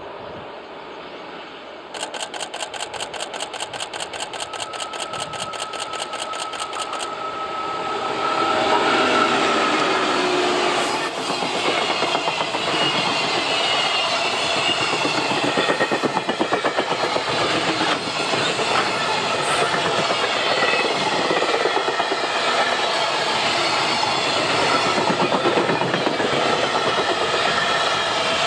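A freight train passes close by, drawn by a JR Freight EF81 300-series stainless electric locomotive. The loaded container wagons roll past with a steady rhythmic clickety-clack of wheels over the rail joints. As the train draws near, a fast, even clicking starts about two seconds in and stops about five seconds later, along with a faint tone that falls slowly in pitch.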